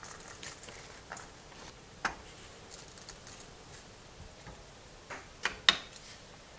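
Dry spaghetti strands ticking and clicking against the rim and sides of a pot of boiling water as they are fanned in by hand, then a few sharper knocks near the end as a wooden spoon pushes them down.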